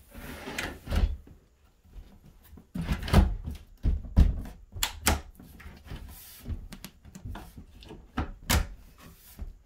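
Drawer box being seated on concealed undermount drawer slides: a series of knocks and clunks of the box on the runners, with sharp clicks as the locking clips under the box snap onto the slides. The sharpest click comes near the end.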